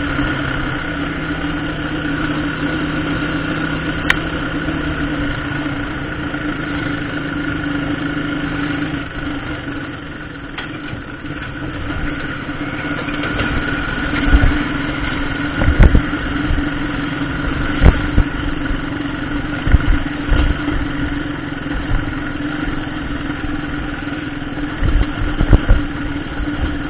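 Motorcycle engine running at low road speed with a steady hum. In the second half, a series of sharp thuds and knocks as the bike jolts over the rough, unpaved road surface.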